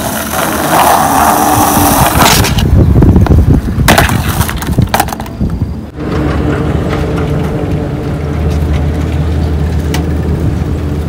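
Skateboard wheels rolling on rough concrete, with a sharp clack from the board about four seconds in and a lighter one about a second later. After that comes a steady low rumble.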